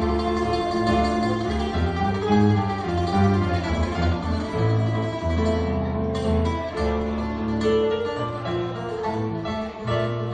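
Live Greek music on a bowl-backed Greek lute: a steady run of plucked notes.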